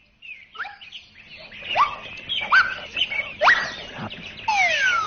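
Squeaky cartoon chirps: about four short calls rising in pitch, then two sliding down near the end.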